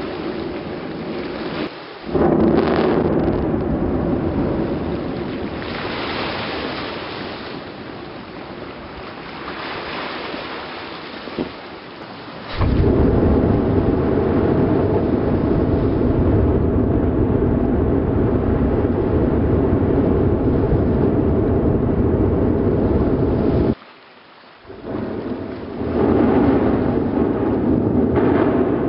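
Low, rumbling roar of Batu Tara volcano's Strombolian eruption as it blasts ash from the crater. It jumps abruptly louder about two seconds in and again near the middle, and drops out briefly about two-thirds of the way through.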